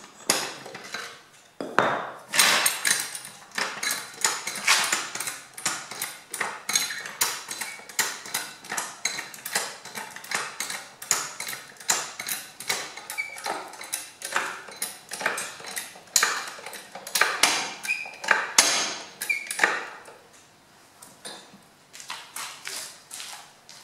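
Hydraulic floor jack being pumped by hand: a rapid run of metallic clanks and clicks, about two to three a second, as it lifts the front of a small tractor. The strokes thin out and soften a few seconds before the end.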